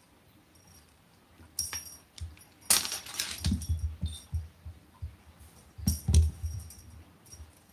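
Cats scampering and pouncing on a wooden floor, their paws thudding, while the small bell on one cat's collar jingles. The activity comes in two bursts, one about two seconds in lasting a couple of seconds, and a shorter one about six seconds in.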